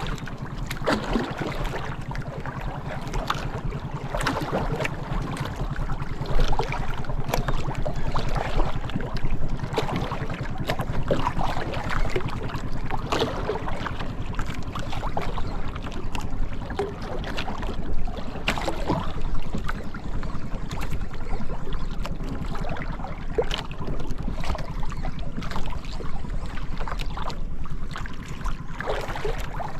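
A small boat's engine runs with a steady low hum, broken by irregular splashes and knocks of water against the hull, with wind on the microphone.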